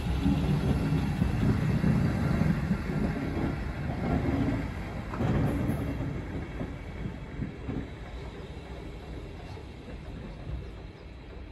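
A train of passenger coaches rolling past on the rails, the wheels and running gear rumbling and growing steadily fainter as the train draws away.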